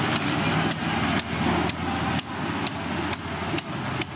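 Long knife sawing through the hard, scaly skin of a large alligator gar, with a sharp click or crunch at each stroke, about two a second.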